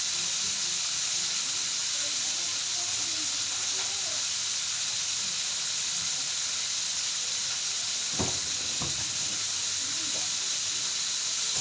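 Food sizzling steadily in hot oil in a frying pan, with two brief knocks, like a utensil against the pan, about eight seconds in.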